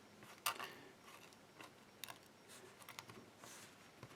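Faint, scattered clicks and light knocks of small hard objects being handled and set down on a work surface, the sharpest about half a second in.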